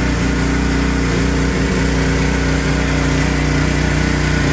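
Pressure washer's small engine running steadily.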